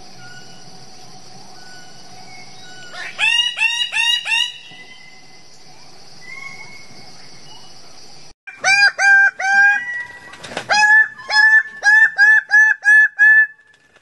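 Bird-of-paradise calling: four loud short calls, each sliding up in pitch, about three seconds in, then after a pause a faster series of about a dozen loud calls. A steady high buzz and faint distant bird notes lie under the first half.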